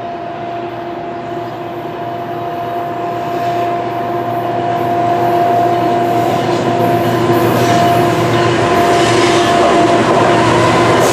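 Freight train led by a GE ET44AC diesel locomotive approaching at speed, the rumble growing louder over the first half and then holding, with a steady high-pitched hum throughout and a few sharp high squeals or clicks late on.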